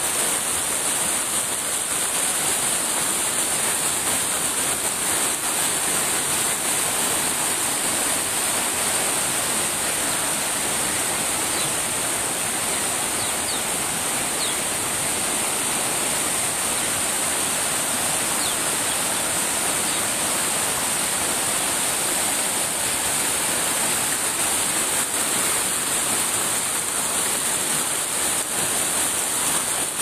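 Fast, shallow rocky stream rushing and tumbling over stones, a steady, even rush of water with a high hiss on top.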